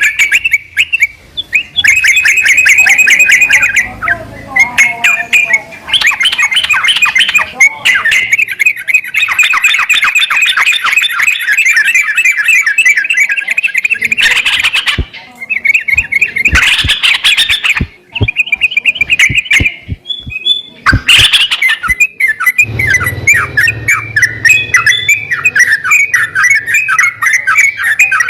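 Yellow-vented bulbul (trucukan) song: long runs of fast, repeated notes, pausing every few seconds, with a few sharp clicks around the middle.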